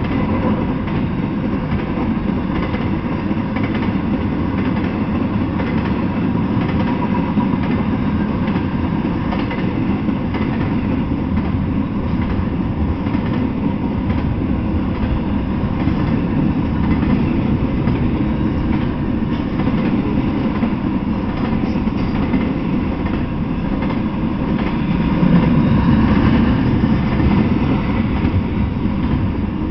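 Freight train of double-stack intermodal well cars rolling past, a steady low noise of steel wheels on the rails that swells a little near the end.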